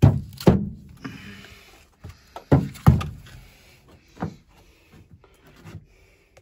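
Heavy wooden knocks and thumps in a small log bathhouse: two pairs of loud strokes about half a second apart, then a lighter one, each with a short echo from the room.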